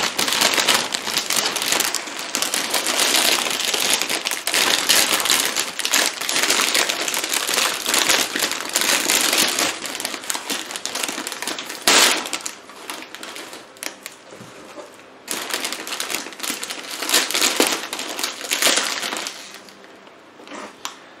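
Plastic packaging, bubble wrap and a clear plant sleeve, crinkling and crackling loudly as hands pull and crush it. It keeps up densely with a sharp, louder crackle about twelve seconds in, and eases off in two quieter spells in the second half.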